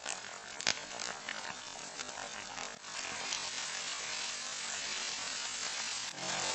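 Sauce sizzling in a frying pan while a wooden spatula stirs and scrapes through it, with a sharp tap under a second in. The sizzle grows steadier and louder from about three seconds in.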